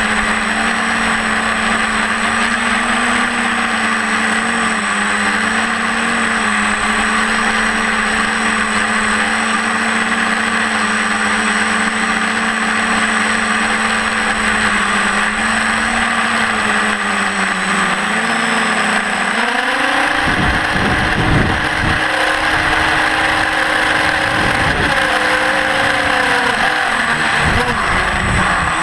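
Electric motor and propeller of an FPV aircraft in flight, a steady hum that wavers slightly with throttle. About two-thirds of the way through the pitch steps up as the throttle rises, and wind buffets the microphone.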